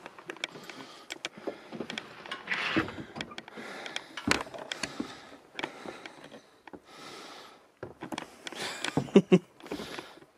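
Footsteps and handling noise from a person moving about on foot: irregular clicks, scuffs and knocks, with a cluster of louder knocks about nine seconds in.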